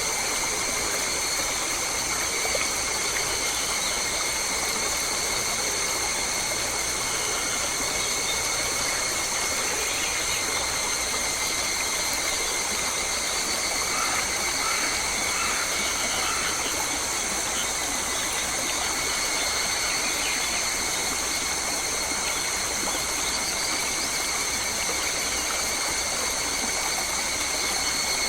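Steady Australian forest ambience: an even hiss with several constant high-pitched tones, and a few faint short chirps about halfway through.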